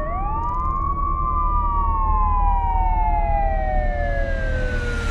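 Two police car sirens wailing out of step, each sweeping quickly up in pitch and then sliding slowly down, over a steady low rumble.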